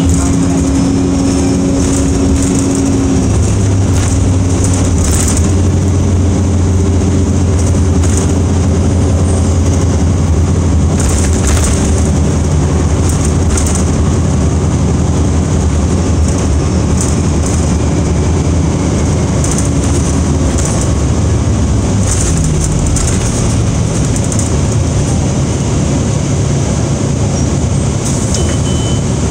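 City bus heard from inside the passenger cabin while driving: a steady engine and drivetrain hum with road noise, the engine note dropping about three seconds in. Interior fittings rattle now and then.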